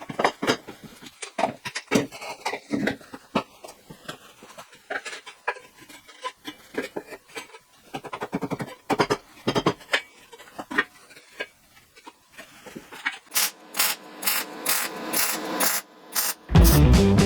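Workshop hand-tool work: irregular knocks, taps and scrapes, then a run of quick, evenly spaced strokes, about three a second, near the end. Loud rock music cuts in just before the end.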